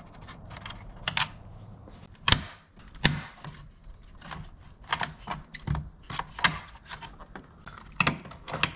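Irregular clicks and light knocks of hard plastic mirror trim parts and a hand tool being handled as a side-mirror turn signal housing is taken apart, with two sharper clicks a little over two and three seconds in.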